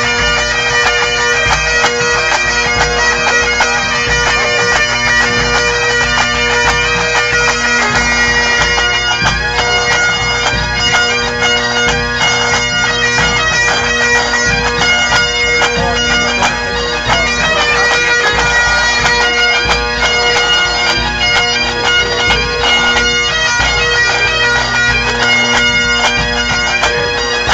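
A pipe band's Great Highland bagpipes playing a tune together, the drones holding a steady tone under the chanters' shifting melody.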